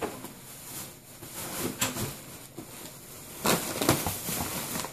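Thin plastic shopping bag rustling and crinkling as a hand rummages in it, in a few short spells, the longest about three and a half seconds in.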